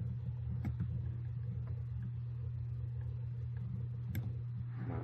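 Steady low electrical hum on the recording, with a few sharp computer-mouse clicks, the clearest about half a second in and just after four seconds.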